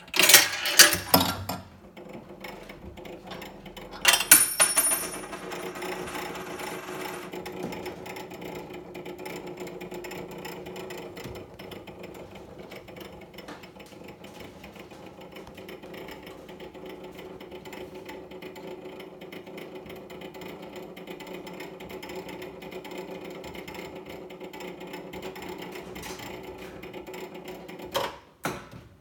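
Polyphon 19 5/8-inch ten-disc autochange music box lifting a steel tune disc into playing position. Loud clunks and clatter from the lever and changer mechanism at the start and again about four seconds in, then a steady mechanical whir as the disc rises, and a brief clatter just before the end.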